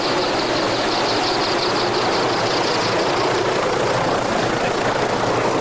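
Aircraft engine running with a steady, even drone, with no change in level.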